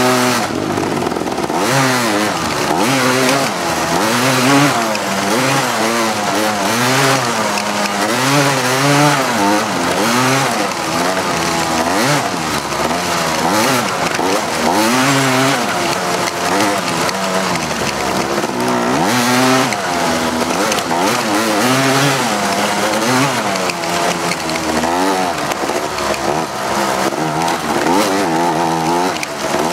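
Four-wheeler (ATV) engine being ridden hard, its revs rising and falling again and again with the throttle, over a steady rushing noise.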